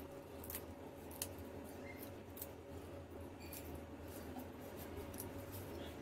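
Small kitchen knife cutting celery leaves and stems held over a plate: faint, crisp cuts at irregular intervals over a low steady hum.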